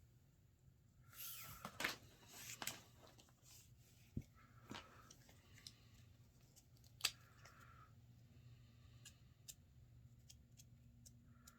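Faint handling of 550 nylon paracord and a marker: the cord rustling and sliding as it is doubled over and marked, with a few small clicks and taps, the sharpest about seven seconds in.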